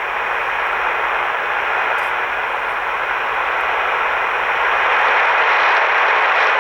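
Shortwave static: a steady hiss of band noise from the County Comm GP5 SSB receiver tuned to WHRI on 7315 kHz, with no programme audio on the frequency. The hiss grows slightly louder in the second half.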